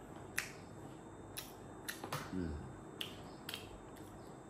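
Eating sounds from a man eating rice with his fingers: about six faint, sharp, separate clicks spread over the few seconds, with a brief low murmur of voice a little after two seconds in.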